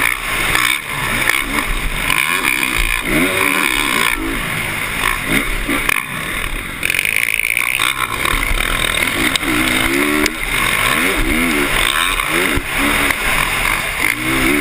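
Motocross dirt bike engine revving up and down again and again, its pitch rising and falling every second or so as the throttle opens and closes, over a steady rush of wind noise.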